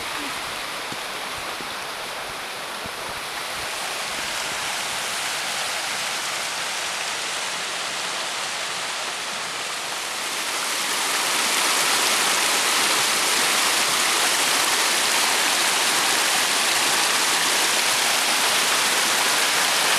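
Fast mountain river rushing over rocks: a steady wash of water noise that grows louder about halfway through and stays loud.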